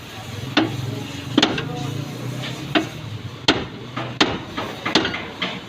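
Hammer blows on the metal parts of a car's front wheel hub during a wheel bearing replacement: six separate strikes, roughly one a second, each ringing briefly.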